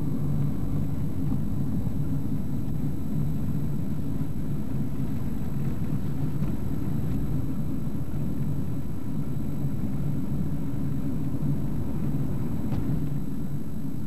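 Steady engine and road rumble from inside a moving car.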